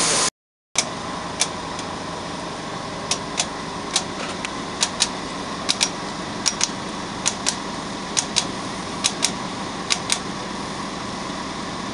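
Light, sharp metal clicks and taps at irregular intervals, from a gloved hand working the brake caliper and pads on a truck's air-disc brake, over a steady mechanical hum.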